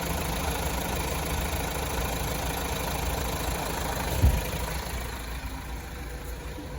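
2015 Mazda CX-5's engine idling steadily with the air conditioning running, with one short low thump a little past four seconds in.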